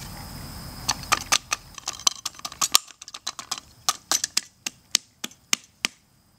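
Knife blades striking sharply again and again while hacking apart an orange bell pepper: a string of irregular clicks and taps, about four a second.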